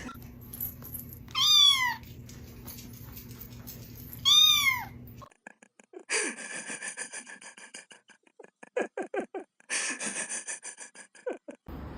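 A cat meowing twice, two high calls that rise and then fall in pitch, about three seconds apart. From about halfway in, a run of quick clicks and short chirping calls follows.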